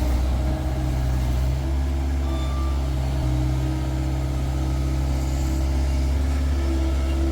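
Skid-steer loader's diesel engine running steadily at a constant speed, a low even drone.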